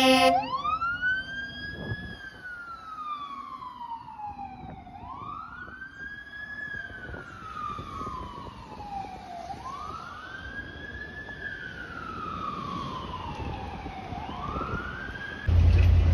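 Fire truck's electronic siren sounding a repeating wail, each cycle rising quickly and falling slowly, about every four and a half seconds as the ladder truck drives away. Near the end a loud low rumble cuts in suddenly.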